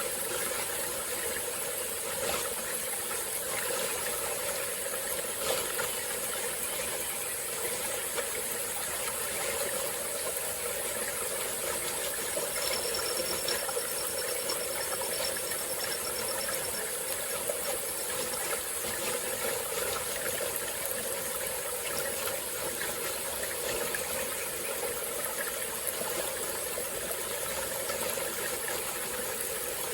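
A small stream flowing steadily over rocks, a continuous water rush. For a few seconds near the middle, a thin, high, rapidly pulsing tone sounds over it.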